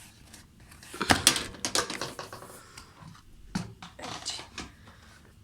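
Plastic clicks and clatter as the vacuum cleaner's dust container is unlatched and opened: a string of sharp knocks starting about a second in, the loudest first.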